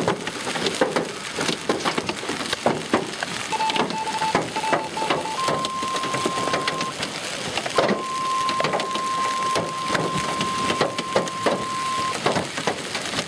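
Hailstones falling hard, a dense clatter of sharp hits with rain. About four seconds in, a short run of beeps comes in, then a steady electronic alert tone sounds twice, the second time for about four seconds: a weather radio's warning tone.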